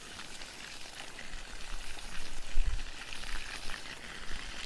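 Water jetting from the open end of a black irrigation hose and spattering onto grass, a steady hissing patter, as the line is flushed through with pumped irrigation water. A brief low bump a little past halfway.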